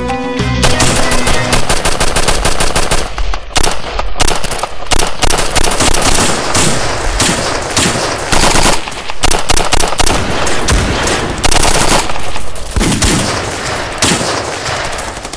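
Heavy automatic gunfire: rifles and machine guns firing in long, overlapping bursts, with a few short lulls. Music fades out during the first second or so.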